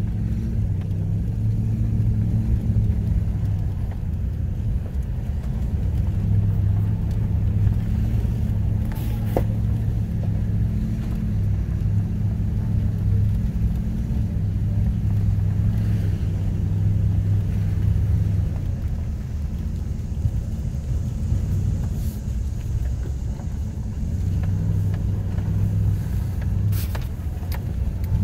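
V8 engine of a four-wheel-drive vehicle pulling steadily up a gravel road, heard from inside the cab as a steady low drone. A few light clicks come through about a third of the way in, midway and near the end.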